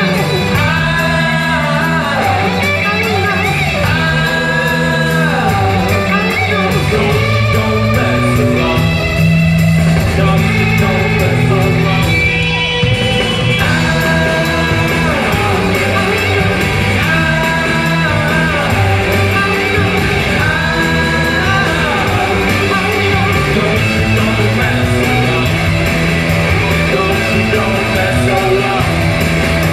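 Rock band playing live through an arena PA: a singer's voice over electric guitars and drums, with the echo of a large hall.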